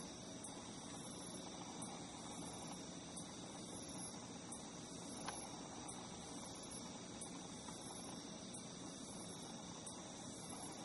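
Chorus of singing insects: steady high trilling, with a higher call pulsing about once a second. A single short tick about halfway through.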